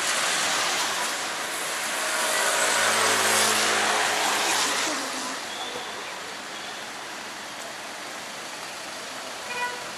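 A car passing on a wet road: tyre hiss on the wet asphalt and engine hum swell to a peak about three to four seconds in, then fade to steady street noise.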